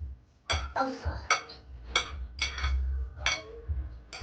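Spoon clinking and scraping against a metal cooking pot, about half a dozen sharp ringing clinks spread over a few seconds.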